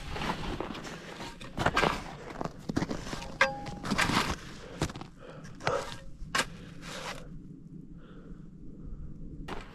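Footsteps in snow: a run of irregular crunching steps, with a pause of about two seconds near the end before the walking resumes.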